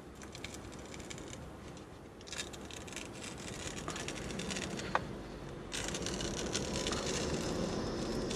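A paper sheet rustling and scraping against a car's dashboard as a hand holds it down, over engine and road noise in the cabin. The cabin noise grows louder a little past halfway as the car moves off, and there is one sharp click about five seconds in.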